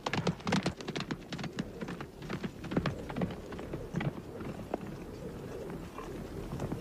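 Horse galloping, a quick irregular run of hoof beats that grows fainter after about three seconds.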